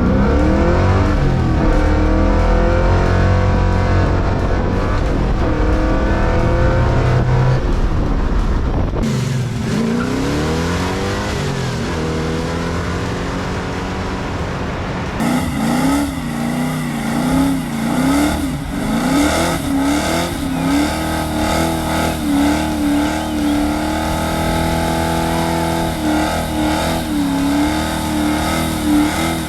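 1974 Camaro Z28's V8 engine revving and accelerating hard, its pitch climbing and falling through the gears. The sound changes abruptly about 9 and 15 seconds in.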